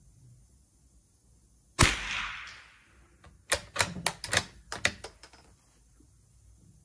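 Unsuppressed Norinco .22 LR rifle firing one subsonic SK Standard Plus round: a single sharp shot that rings on in the range for about a second. About a second and a half later the bolt is worked, a quick run of metallic clicks.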